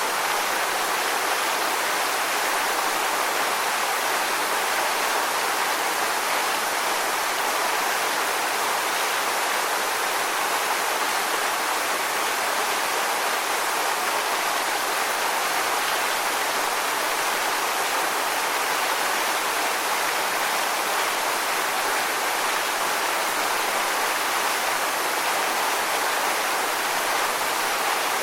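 Waterfall: a steady, unbroken rush of falling water, bright and hissing, with little deep rumble.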